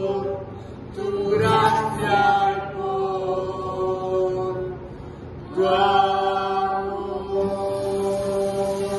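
Women's voices holding long sung notes in a slow, chant-like worship line, two long phrases with a short break about five seconds in. Near the end the soft pattering hiss of bamboo rain sticks being turned upright joins in.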